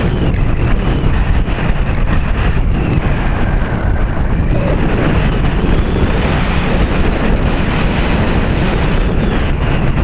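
Steady, loud wind noise from air rushing over the onboard camera's microphone on an Art-Tech Diamond 2500 radio-controlled glider in flight, with a faint whine drifting up and down in pitch behind it.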